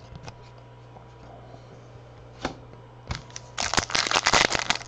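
A few soft clicks of trading cards being handled, then from about three and a half seconds in a dense crinkling as a foil card pack wrapper is torn open.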